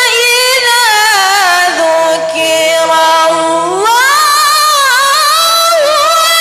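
A young woman reciting the Quran in the melodic tilawah style: one female voice holding long, ornamented notes that waver and bend, climbing in pitch about four seconds in.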